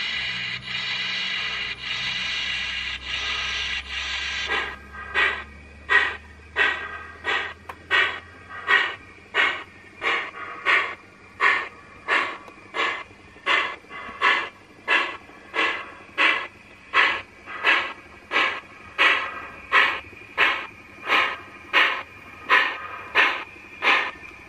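Sound-module steam of a model New York Central Dreyfuss Hudson steam locomotive: a steady steam hiss, then from about five seconds in, evenly spaced exhaust chuffs at about three every two seconds as the engine runs.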